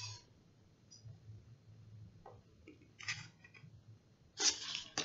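Paper rustling of a picture book's pages as it is held up and handled, a few soft rustles and then a louder rustle near the end, over a faint low hum.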